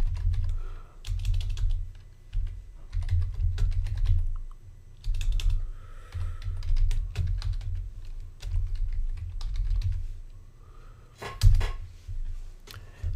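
Typing on a computer keyboard: keystrokes come in several short bursts with pauses between them, each with a low thud beneath the clicks.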